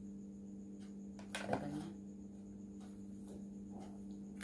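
Quiet room tone with a steady low hum, broken about one and a half seconds in by a brief soft handling sound.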